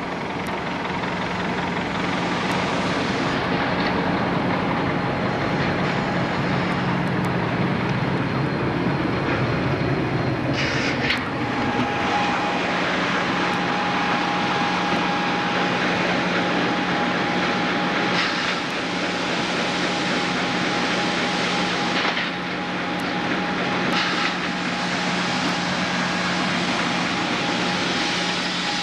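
Sawmill machinery running steadily: a constant low hum under a wide mechanical din, with a steady higher whine joining about twelve seconds in and a few short hisses.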